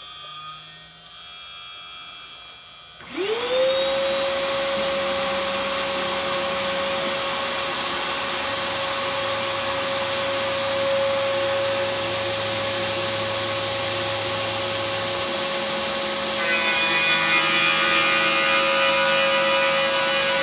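A CNC router's spindle hums until, about three seconds in, the dust-collection vacuum switches on and winds up quickly to a loud, steady whine and rush of air, louder than the machine. Near the end the spindle's cutter starts the facing cut in the redwood, adding a rough sawing sound on top.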